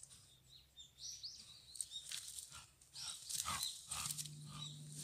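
Young wild boar caught in a capture trap, giving short high-pitched squeaks and moving through dry brush with rustling and crackling; the sounds grow louder in the last couple of seconds.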